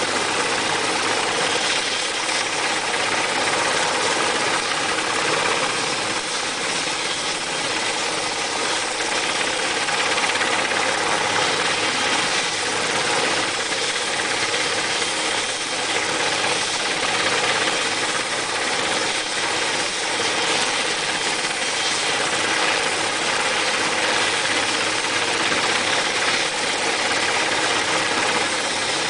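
Sikorsky S-61 helicopter running on the ground with its main rotor turning: a steady, loud noise from its twin turboshaft engines and rotor.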